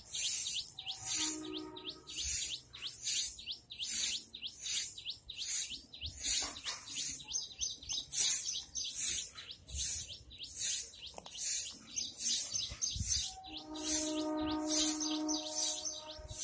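A bird chirping over and over in an even rhythm, about three high chirps every two seconds. Near the end a steady droning hum made of several held tones joins in.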